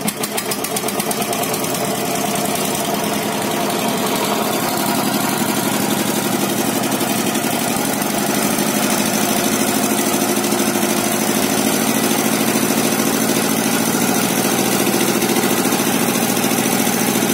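An engine running steadily with a fast, even pulse, growing a little louder over the first few seconds and then holding.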